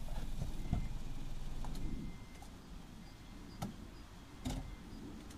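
Car door being unlatched and swung open as someone climbs out of a small hatchback, heard as a few sharp clicks and knocks. A low rumble fades out about two seconds in.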